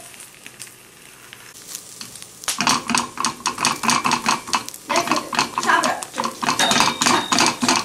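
Spatula scraping and knocking against a frying pan in quick repeated strokes while a fried egg is worked loose and turned, beginning about two and a half seconds in. Before that there is only a faint sizzle of the egg frying.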